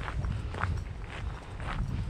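Footsteps of a person walking at a steady pace, about two steps a second, over a low steady rumble.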